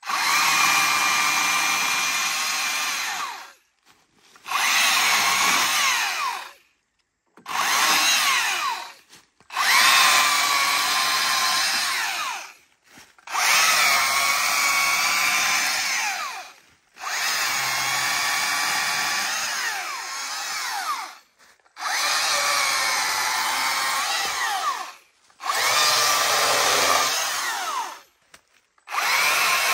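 Stihl MSA 300 battery chainsaw on its reduced-chain-speed Eco setting, cutting dry wood in about eight short runs of a few seconds each. It falls silent between runs as the trigger is released. Its motor whine dips and recovers in pitch during the cuts.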